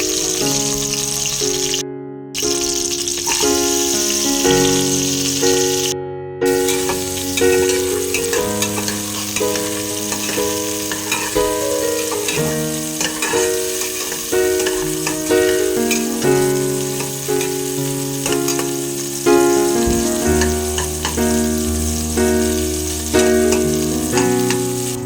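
Food frying and sizzling in a pan under background piano music, with the sound cutting out briefly twice near the start.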